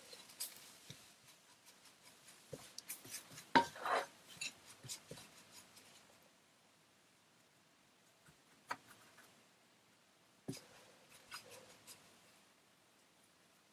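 Black plastic spatula scraping and tapping against a coated frying pan as chopped leek and flour are stirred. A run of quick scrapes and clicks for the first half, loudest about four seconds in, then only a few single taps.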